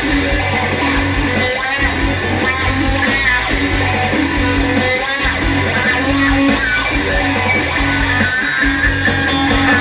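Live rock band playing an instrumental passage: electric guitars, bass guitar and drum kit over a steady beat, with no singing.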